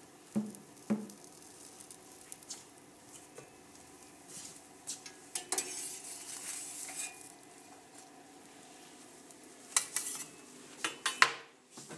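Sandwiches being handled at a conveyor toaster. Two light knocks come in the first second. A gloved hand slides a toasted sandwich across the stainless steel exit tray a few seconds in, and near the end there are sharp clinks of ceramic as it is set on a stack of plates, all over the toaster's faint steady hum.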